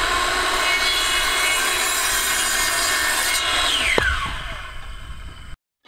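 Power saw cutting through a wooden board, motor whining over the rasp of the cut; about four seconds in the blade is released and spins down with a falling whine.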